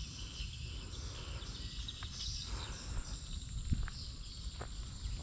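Outdoor ambience: wind rumbling on the microphone, insects chirring in a steady high hiss, and a few sharp clicks in the second half.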